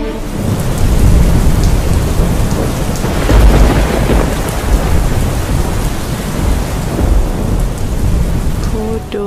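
Heavy rain pouring down with rolling thunder, the thunder swelling loudest about three to four seconds in. Near the end a pitched voice or melody begins over the rain.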